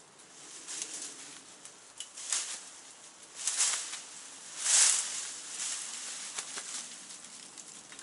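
Handsaw cutting through a tree branch in slow, uneven strokes, each stroke a short rasp; the strongest stroke comes about halfway through.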